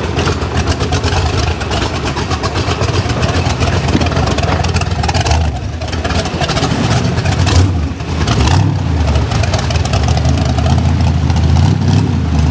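Rock bouncer buggy's engine running and revving unevenly as it crawls through mud, with the revs dropping briefly about six seconds and eight seconds in.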